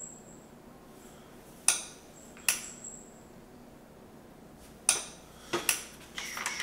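Several sharp knocks and clinks of hard objects, spaced a second or more apart, some with a brief high ring, and a short burst of clatter near the end.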